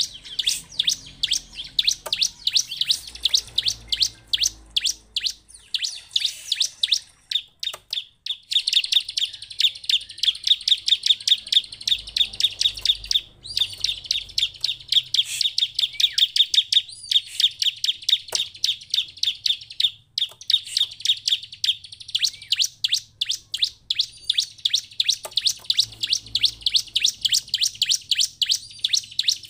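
Bar-winged prinia (ciblek) calling a long, unbroken run of short, sharp, high chirps, several a second, which becomes denser and faster in the middle.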